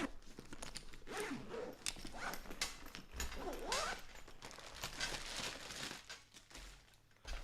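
Backpack's YKK zipper being pulled open along the main compartment, a series of irregular rasping zip strokes that die down about six seconds in.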